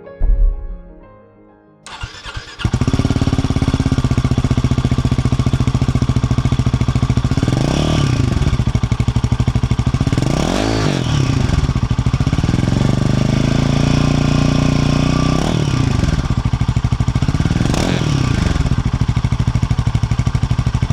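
Royal Enfield Himalayan 450's single-cylinder engine through its stock exhaust: it starts about two seconds in and settles into a steady idle. It is revved several times, with four quick blips that rise and fall and one slower rise and fall in the middle.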